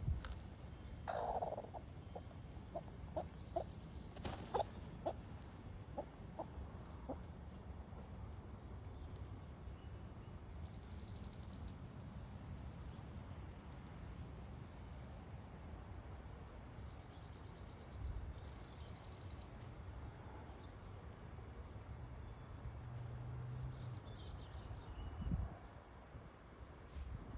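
Broody Buff Orpington hen clucking in a nesting box: one short call about a second in, then a run of quick, low clucks over the next few seconds. Faint high chirps come and go afterwards.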